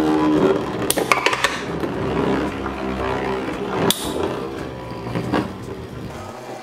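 Two Infinity Nado 3 metal spinning tops whirring and scraping across a plastic arena floor. There is a cluster of sharp clacks about a second in and another clack near four seconds, as the tops strike each other.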